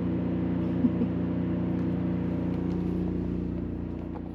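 Steady mechanical hum made of several held tones, with a faint click or two about a second in, slowly fading out near the end.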